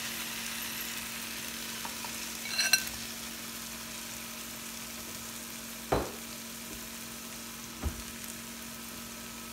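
Crab pieces going into a pan of hot oil and onion-tomato masala and sizzling steadily. About two and a half seconds in, a spatula clinks with a short ring, and two dull knocks come later as the pieces are pushed in.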